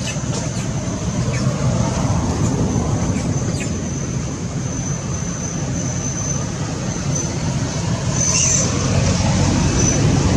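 Steady outdoor background rumble with a thin, steady high tone running through it.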